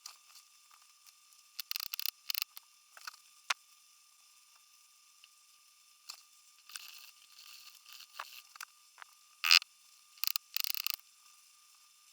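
Small 3D-printed oscillating-cylinder air engine hissing and clicking in short, irregular spurts rather than running at a steady beat. The loudest burst comes just before ten seconds in. A faint steady high tone runs underneath.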